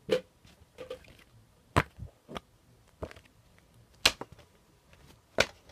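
A series of sharp knocks or taps, irregularly spaced, with a long pause between some of them; the loudest comes about four seconds in.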